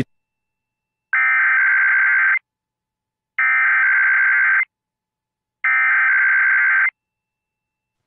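Emergency Alert System SAME header: three bursts of buzzy digital data tones, each a little over a second long and about a second apart, the coded header that opens a Required Weekly Test.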